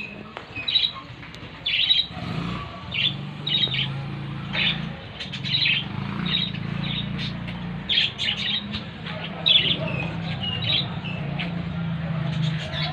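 Small birds chirping and squawking in quick, repeated short calls. From about two seconds in, a low, steady engine hum runs beneath them.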